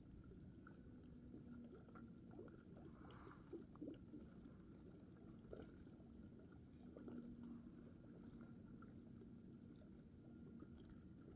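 Near silence: faint background hiss with a faint on-and-off steady hum and a few small ticks.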